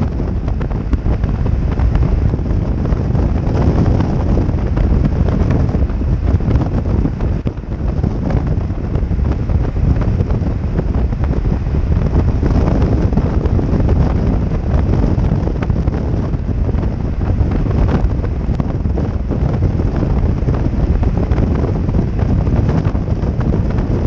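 Steady wind noise buffeting the camera's microphone on a motorcycle cruising at highway speed, a dense low rumble with no breaks.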